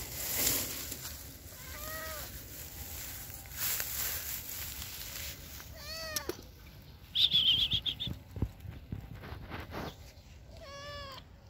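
A white cat meowing three times: short calls that rise and fall in pitch, about two seconds in, again at six seconds, and near the end. Grass rustles throughout. A brief high chirping trill between the second and third meows is the loudest sound.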